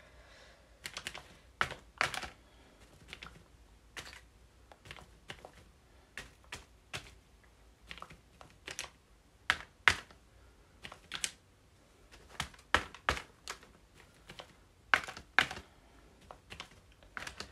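Irregular sharp taps of a small stamping tool pressed down onto a card on a paper-covered tabletop while stamping paint circles, some taps coming in quick pairs.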